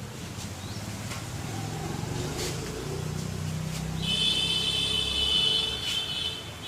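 A motor vehicle's engine rumbling, swelling and fading, with a steady high-pitched whine coming in about four seconds in.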